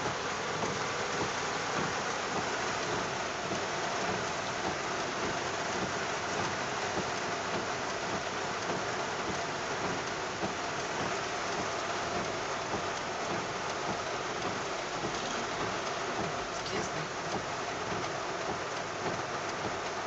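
Heavy rain falling steadily on a moving car, heard from inside as a dense, even hiss.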